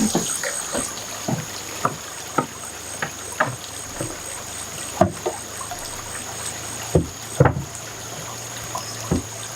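Irregular small splashes and trickles of water, a few louder ones, over a steady high-pitched insect drone.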